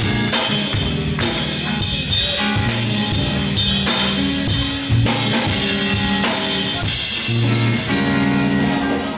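Live band playing with a steady drum-kit beat and cymbals, bass guitar, electric guitar, congas and a bowed violin.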